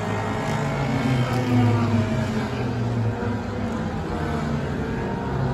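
Several stock car engines running as the cars pass along the front stretch of a short oval: a steady low engine drone whose pitch wavers slightly as the cars go by.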